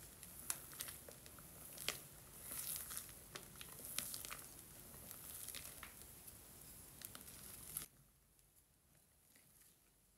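Wire whisk folding whipped egg whites into egg batter in a glass bowl: soft, faint wet swishing and squelching with scattered light clicks of the wires against the glass. It falls much quieter about eight seconds in.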